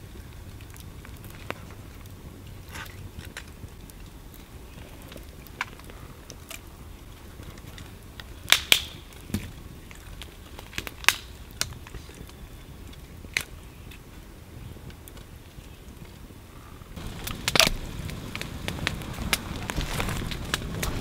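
Campfire crackling, with scattered sharp pops. A few loud snaps come in the middle, and the crackling grows denser near the end.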